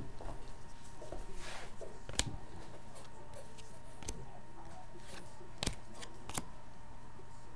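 Trading cards being handled and flipped through, a soft papery rustle with four sharp clicks as cards are set against the glass counter.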